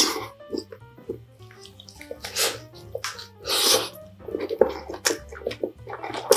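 Close-miked wet chewing and mouth sounds of someone eating dumplings, in several short bursts, over soft background music.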